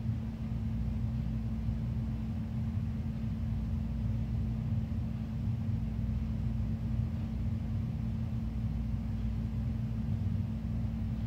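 Steady low rumble with a constant hum, unchanging throughout: the background noise of a large room with its ventilation system running.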